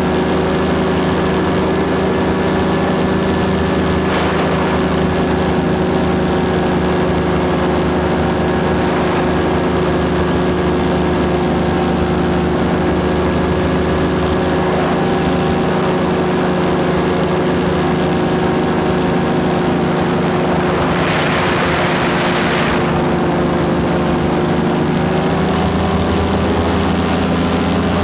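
Paramotor engine and propeller running steadily at a constant pitch in flight, with a brief rush of hiss about three quarters of the way through.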